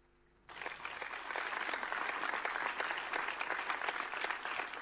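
Applause from many people clapping together, starting suddenly about half a second in.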